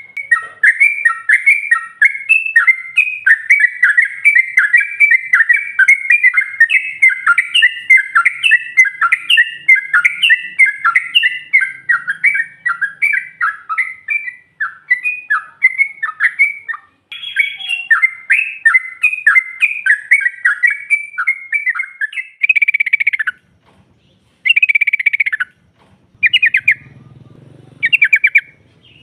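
Yellow-vented bulbul chattering, the female's call: a fast run of short, bubbly notes, about three or four a second, that goes on without pause, then breaks up near the end into a few separate, harsher bursts.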